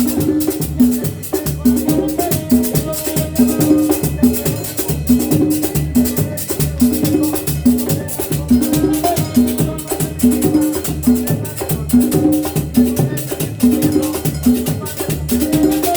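Latin dance music, salsa-style, with a steady beat of hand percussion and shakers over a bass line.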